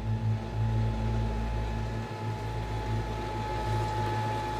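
Blacksmith's forge with its air blower running: a steady hum and rush of forced air feeding the fire.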